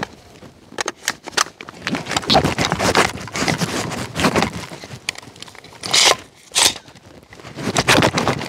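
An AR-15 carbine being loaded: metallic clicks and scraping as the magazine goes in and a round is chambered, with two sharper clacks about six seconds in.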